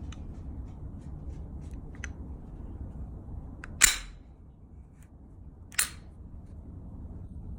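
Two sharp metallic clicks from a Glock 21 pistol being handled, a loud one about four seconds in and a softer one about two seconds later, with a few faint ticks before them, over a steady low rumble.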